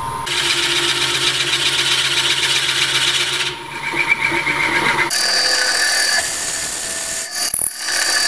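Powermatic wood lathe spinning a barn-beam blank while a 1 3/8-inch Forstner bit bores slowly into the super hard, dry wood, a scraping rasp over the lathe's steady whine. The cutting breaks off about three and a half seconds in and resumes with a higher, thinner tone.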